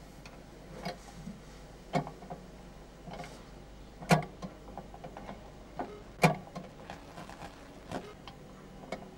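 Sharp, irregular clicks and knocks one to two seconds apart, two louder ones in the middle, over a faint steady low hum.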